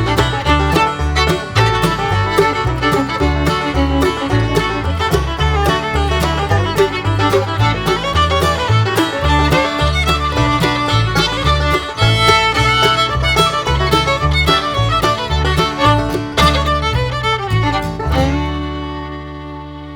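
Upbeat instrumental music over a rhythmic bass line with quick string notes, ending about 18 seconds in on a held chord that fades out.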